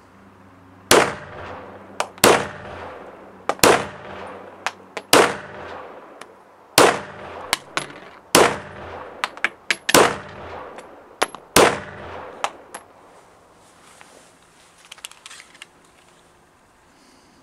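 Werle competition Luger P08 in 9 mm Luger fired eight times in slow, even succession, about one shot every one and a half seconds, with lighter metallic clinks between the shots. A few seconds after the last shot come small metallic clicks as the magazine is taken out of the grip.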